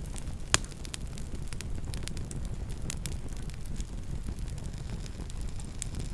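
Campfire burning: a steady low rumble with frequent small crackles and one loud pop about half a second in.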